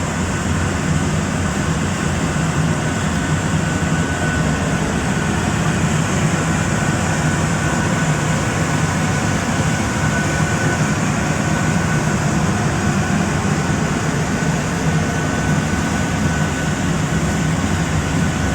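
Industrial microwave extraction machine running: a steady mechanical drone with a low hum and a thin, steady high whine over it.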